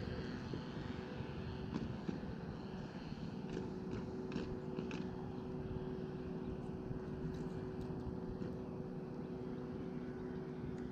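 A steady engine drone, with a few faint light clicks around the middle.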